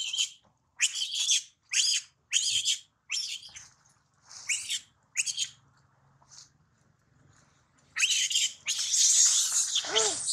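Young macaque crying in distress, which the uploader puts down to it being hurt and scared: a string of short, high-pitched squealing cries, then a pause, then a long run of loud screaming cries near the end.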